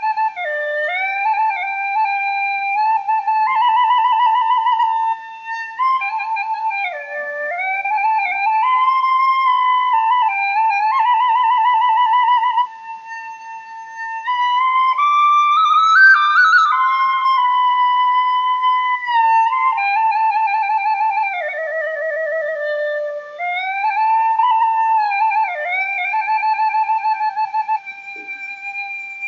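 Background music: a single flute-like wind instrument playing a slow melody with vibrato, pausing briefly about halfway through.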